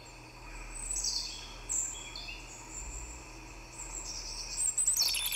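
Birds chirping in the background: a few high calls, some of them gliding downward.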